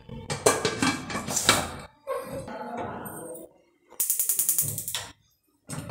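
Aluminium pressure cooker lid being fitted and twisted shut, with metal knocks and scraping. About four seconds in comes roughly a second of fast, even clicking as a gas hob knob is turned, the hob's spark igniter.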